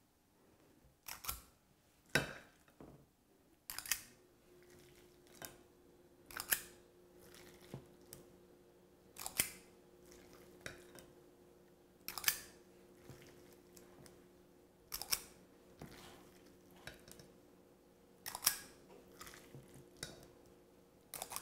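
Metal squeeze-handle kitchen scoop working chicken filling out of a glass bowl, its release mechanism and rim scrapes giving a sharp click every one to three seconds. A faint steady hum comes in about four seconds in.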